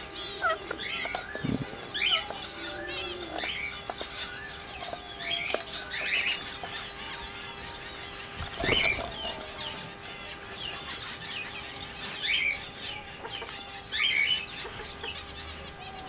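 Flock of rose-ringed (Indian ringneck) parakeets giving short, repeated chirping calls as they feed, over a rapid, high twittering that runs through most of it. One sharp knock comes about halfway through, and a faint steady hum sits underneath.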